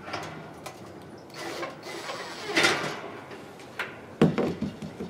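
Scraping and clicking of a screwdriver working screws out of a Dynaglow kerosene heater's metal housing, with a louder scrape about two and a half seconds in and a couple of sharp knocks near the end.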